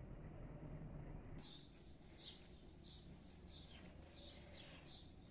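Faint birdsong: a quick run of short, high chirps, about two or three a second, starting about a second and a half in over a low background hum.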